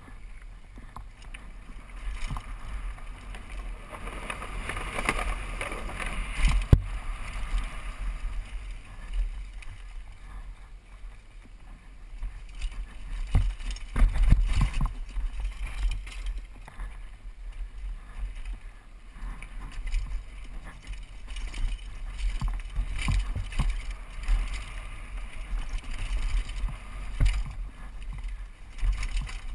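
Downhill mountain bike ridden fast over a rocky dirt trail: wind buffeting a helmet-mounted camera, tyres rumbling over dirt and rock, and the bike rattling with sharp knocks from hits, the hardest about halfway through.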